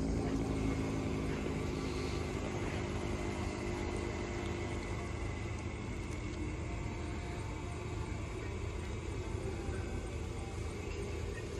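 Motor vehicle engine running steadily, a low even hum over a rumble.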